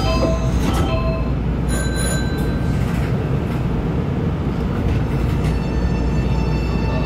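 Nankai 8300 series electric train setting off from a station stop, heard over its constant low rumble. A short repeating chime ends about a second in, and from about five seconds a steady whine of several tones comes in as the train starts to move.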